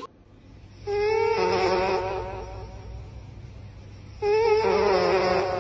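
Cat snoring loudly in its sleep: two long snores about three seconds apart, each a wavering hum lasting about a second and a half.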